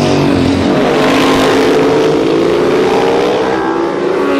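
A group of racing motorcycles passing close at high revs, one after another. Their engine notes slide down in pitch as each goes by, and the next one rises as it accelerates near the end.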